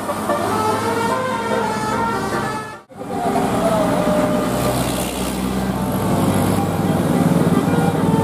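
Indonesian 'telolet' bus horn: a multi-tone air horn playing its melody of stepped notes, cut off abruptly about three seconds in. After the break a bus engine runs, with only a few short horn tones.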